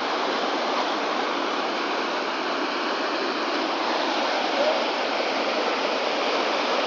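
Whitewater river rapids rushing: a steady, even wash of water noise.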